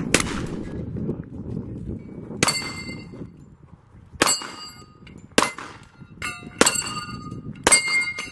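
A run of about six gunshots about a second apart, each hit ringing a steel dueling-tree target with a bright metallic clang.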